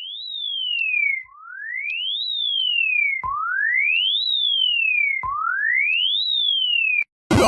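Emergency alert alarm tone: a single pure electronic tone that sweeps up quickly and then slides partway back down, repeating about every two seconds, four times. It cuts off abruptly near the end.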